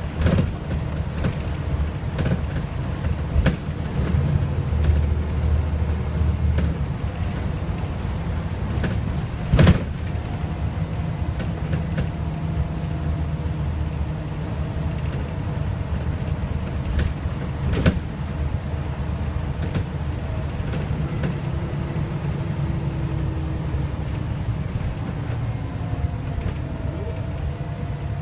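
Scania L94UA articulated bus heard from inside the cabin on the move: its diesel engine runs with a steady low drone, and the engine note rises and falls with speed. Body rattles run throughout, with two sharp knocks, the louder about ten seconds in and another around eighteen seconds.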